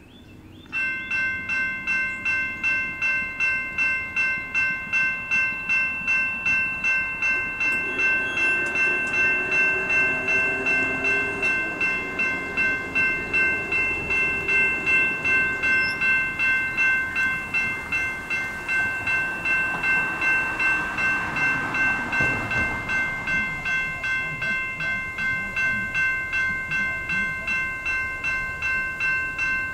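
A railroad grade-crossing warning bell starts ringing just under a second in, with an electronic ring at several fixed pitches repeating about two to three times a second, as the crossing activates for an approaching train. Lower, wavering tones swell briefly around ten seconds in, and a broad rushing sound builds and fades a little past twenty seconds.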